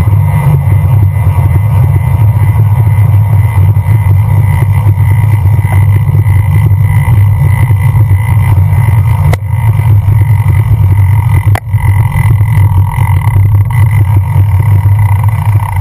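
Wind rushing over a bicycle-mounted GoPro's microphone while riding, heard as a loud steady low rumble, with road and tyre noise under it. Two short sharp clicks, one about nine seconds in and another near twelve seconds.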